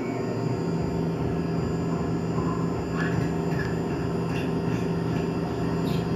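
Tormach PCNC 1100 CNC mill running on MIC6 aluminium plate: a steady machine drone with an even whine, and faint irregular chirps joining from about halfway.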